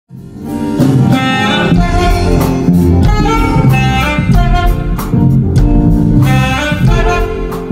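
Two saxophones playing a jazzy gospel melody live through a PA, backed by a band with a bass line and a steady beat.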